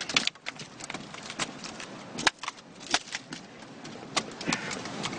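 Irregular sharp clicks and knocks, about a dozen, over a steady low hiss.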